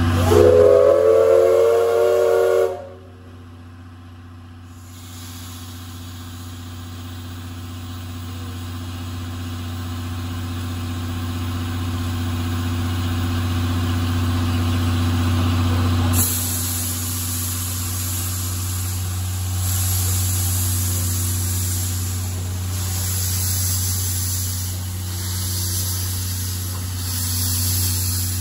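Whistle of steam locomotive C11 123, a 1947 Hitachi C11 tank engine: one blast of about three seconds, rising slightly in pitch at the start. The locomotive then starts to move off, and from about halfway through steam hisses loudly from its cylinder drain cocks, swelling in slow beats.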